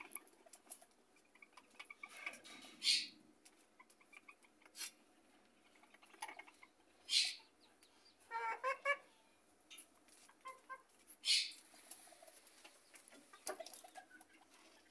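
Bantam hens clucking quietly to one another, with a short run of quick clucks about eight seconds in. Brief scratchy rustles come three times between the clucks.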